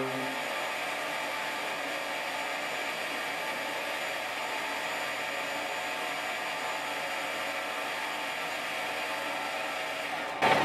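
Benchtop mini metal lathe running steadily while the tool takes a light facing cut across the end of a brass rod held in the chuck. A louder clunk near the end.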